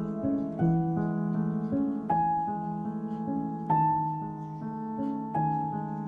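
Background music: a soft piano playing slow, sustained chords that change about every second and a half.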